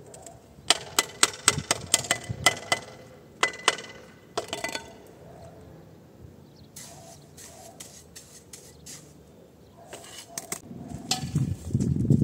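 Steel trowel tapping a hollow ceramic brick to bed it into the mortar: a quick run of sharp, ringing knocks, about four a second, starting under a second in, then a shorter run a little later. Near the end, louder scraping and knocking as bricks and mortar are handled.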